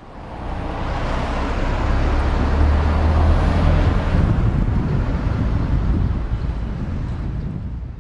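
A car driving past on the street, a low rumble and tyre rush that swells over the first few seconds and then slowly fades away.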